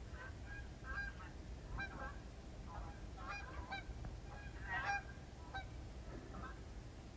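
A faint series of short honking calls, about a dozen, irregularly spaced, with the loudest a little past the middle, over a steady low rumble.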